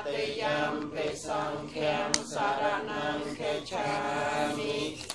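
Several voices chanting a Buddhist chant together, most likely in Pali, on a few held pitches in short phrases that break about once a second.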